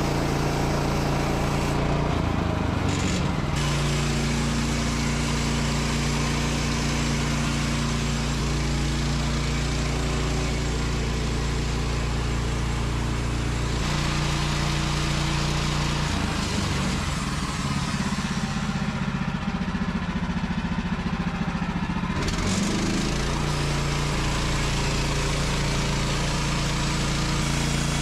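Woodland Mills HM130 MAX portable bandsaw sawmill running steadily through a cut in a Douglas fir log. Its engine note shifts briefly a couple of seconds in, drops about halfway, and stays lower and rougher for several seconds before coming back up.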